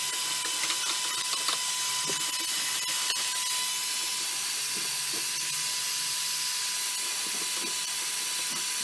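Electric heat gun blowing with a steady hiss and a constant high whine, while a scraper scratches softened paint off a steel tube frame, with light intermittent scraping clicks.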